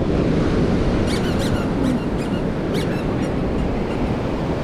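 Ocean surf and wind rushing over the microphone, with a few short, high squeaks about a second in and again near the three-second mark.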